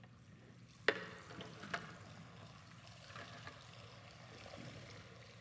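Two sharp knocks or clicks, one about a second in and another just under a second later, over faint room noise.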